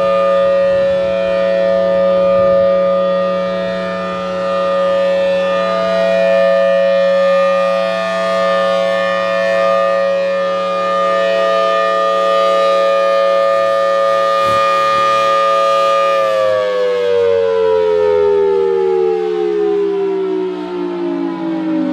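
Thunderbolt 1003 civil defense siren sounding a full-alert steady tone, a held chord. About 16 seconds in it starts winding down, its pitch falling steadily.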